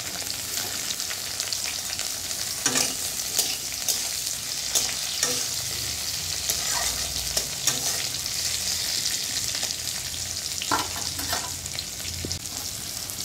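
Diced potatoes and tomatoes sizzling in hot oil in a metal kadai, stirred with a spatula that scrapes and knocks against the pan every few seconds.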